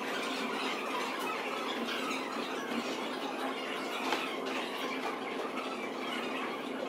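Steady room noise, an even hiss with a low hum under it, and a few soft clicks from fingers working a laptop keyboard and trackpad.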